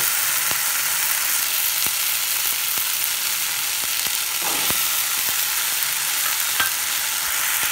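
Okra, shallots and tomato sizzling in hot oil in a metal kadai, with a few light clicks of a wooden spatula stirring against the pan. About four and a half seconds in there is a brief soft clatter as boiled chickpeas are tipped in.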